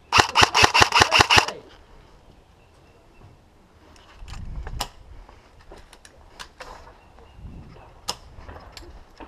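Airsoft electric gun (AEG) firing a full-auto burst of about nine shots in a second and a half, followed by faint scattered clicks and knocks.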